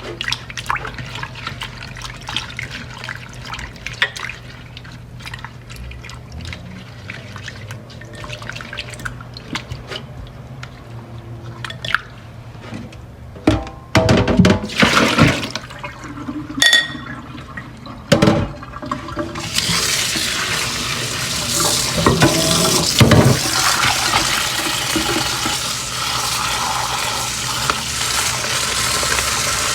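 Kitchen tap running into a sink for the last third or so, as dried soup ingredients are rinsed of grit. Before that, light knocks and a few louder clatters of things being handled in the sink.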